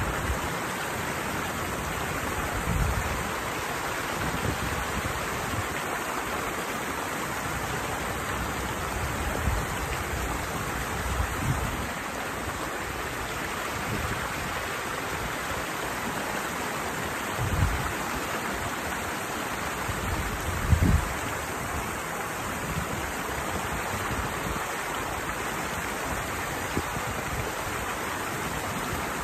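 Steady rush of water pouring over a small weir, with a few short dull low thumps, the loudest about three-quarters of the way through.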